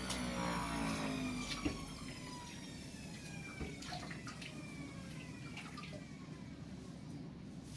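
Tap water running into a kitchen sink while grapes are rinsed in a plastic colander, with a few light knocks of the colander. Near the start, an electric juicer's falling whine dies away as its motor spins down.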